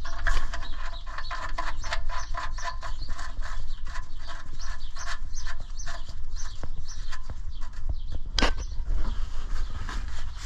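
Oil drain plug being threaded back into a 1981 Chevrolet C10's oil pan by hand: a run of small metallic clicks and scrapes over a steady low rumble, with one sharper knock about eight and a half seconds in.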